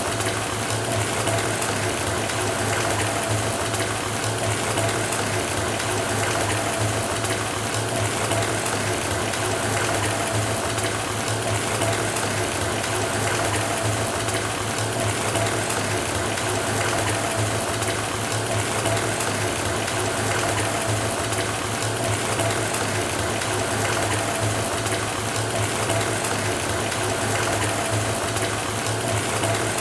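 Tap water pouring steadily into a filling bathtub, with a steady low hum running beneath the rush of water.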